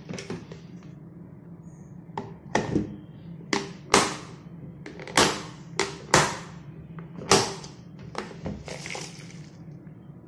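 Mixed dried beans and lentils being washed by hand in a plastic tub of water: a run of sharp sloshes, splashes and knocks against the tub from about two seconds in until near the end, over a steady low hum.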